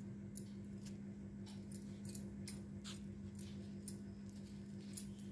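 Faint crinkling and rustling of dry corn husk and thread being handled as thread is wound around the base of a corn-husk rose, a few small ticks scattered through, over a steady low hum.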